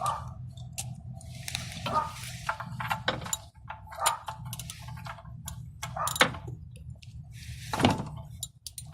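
Metal hand tools and parts clinking and scraping in irregular knocks and short rattles, over a steady low hum.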